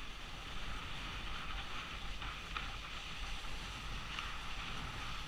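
Snowboard sliding and scraping over icy, hard-packed snow, with wind rushing over the helmet camera's microphone: a steady hiss over a low rumble.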